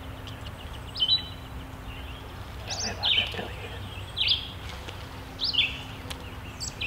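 A songbird calling repeatedly: about five short, high notes, roughly one every second and a half, over steady low outdoor background noise.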